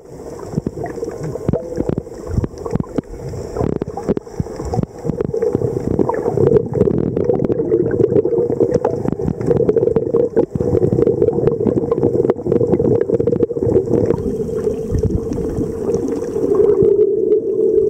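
Underwater noise picked up by a submerged camera: a steady, muffled low rushing of water with many small clicks and knocks scattered through it.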